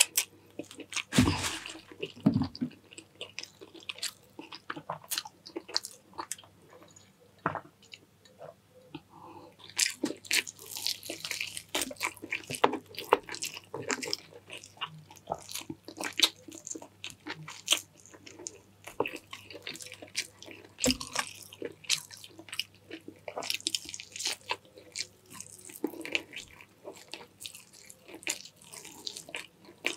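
Close-miked eating sounds: a person chewing and biting chicken in coconut-milk sauce with rice, with many irregular mouth clicks. There are two louder, denser stretches of chewing, about a third of the way in and again past the two-thirds mark.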